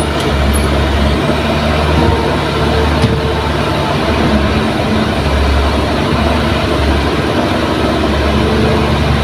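Kobelco SK200 hydraulic excavator's diesel engine running under load as the arm digs into soil, a steady low hum that swells and eases every few seconds.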